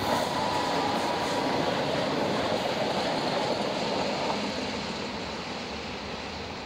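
A Class 60 diesel locomotive passes hauling a freight train of hooded steel-coil wagons, its engine and the wagon wheels running on the rails. The sound is loudest for the first few seconds, then gradually fades as the train goes by.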